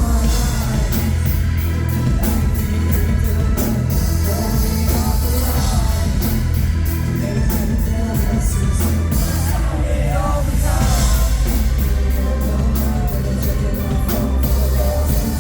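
Rock band playing live with a singer: drums with regular cymbal strikes and a heavy low end under the vocals.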